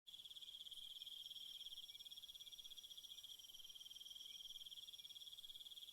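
Faint, steady, high-pitched, rapidly pulsing trill of chirping insects.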